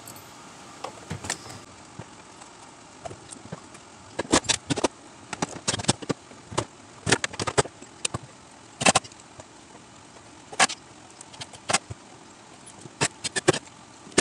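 Irregular clicks, clinks and knocks of hands and tools working in a car trunk while a plastic water-methanol reservoir is fitted to the trunk wall.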